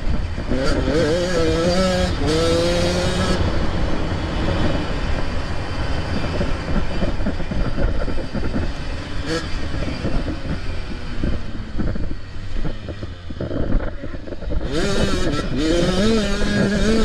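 85cc two-stroke motocross bike engine revving hard on the track. Its pitch climbs and wavers in two stretches of full throttle, one near the start and one near the end, with rougher, lower running in between, all over a heavy low rumble.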